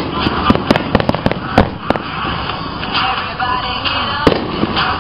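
Fireworks shells bursting: a rapid string of sharp bangs and crackles in the first two seconds, then one more bang about four seconds in, with music playing underneath.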